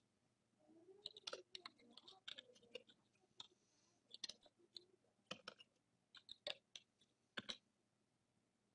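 Faint, irregular clicking in short quick clusters from a computer keyboard and mouse being worked.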